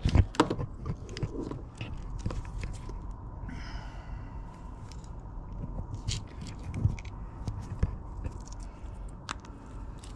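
Wiring harness being handled: wires rustling and plastic plug connectors clicking and scraping, with a couple of sharp knocks at the very start, over a faint steady hum.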